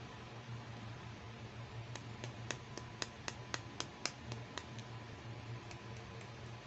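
A quick run of about a dozen sharp plastic clicks, three to four a second, as a pink plastic toy hairbrush is picked up and handled, over a steady low hum and hiss.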